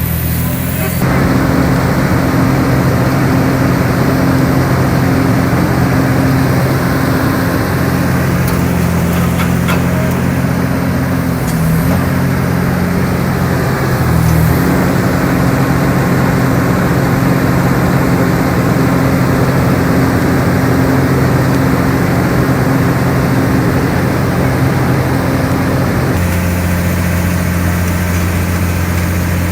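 Diesel engine of a Komatsu long-reach excavator running steadily. It grows louder about a second in, with brief changes in pitch about halfway through, and eases back near the end.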